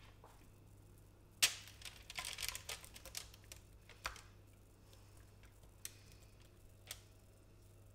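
Silicone spatula scraping thick cake batter out of a glass mixing bowl into a parchment-lined glass baking dish. There is a sharp knock about a second and a half in, then a run of soft scrapes and clicks, and a few single taps later.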